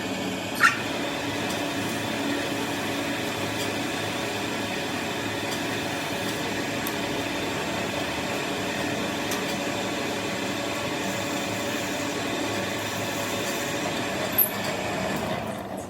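A workshop machine running with a steady hum, with two short metallic clinks, one about half a second in and one near the end.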